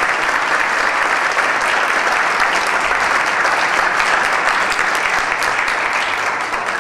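Audience applauding steadily, with the clapping easing off only at the very end.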